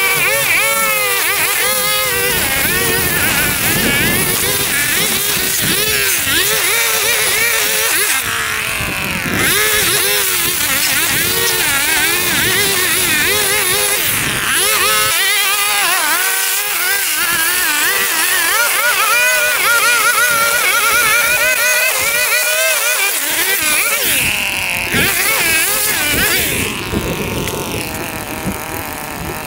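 Small petrol engine of lawn-care equipment running, its pitch wavering up and down continuously.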